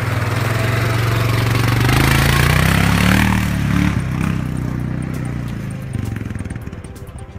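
CFMoto CF625 4x4 ATV's single-cylinder engine pulling away, its note rising about two to three seconds in as it accelerates, then dropping and fading as the quad drives off.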